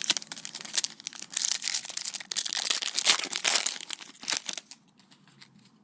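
Plastic wrapper of a Panini Prizm trading-card pack being torn open and crinkled: a dense crackling for about four and a half seconds that then stops.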